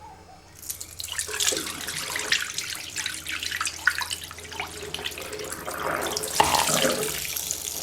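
Dirty water being poured out of a carpet washer's recovery tank into a sink, an uneven splashing that starts about a second in and runs on.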